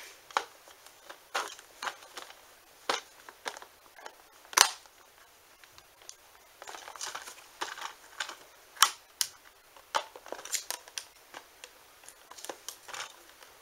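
Plastic-and-cardboard toy packaging of a TrackMaster Sir Handel engine being worked open by hand: irregular clicks, snaps and short scraping rustles, with one sharper snap about four and a half seconds in. The packaging is stubborn and hard to open.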